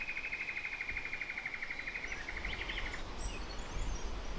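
A rapid, evenly pulsing creature's trill that holds one pitch and stops abruptly about three seconds in. Faint high bird chirps follow over a low outdoor rumble.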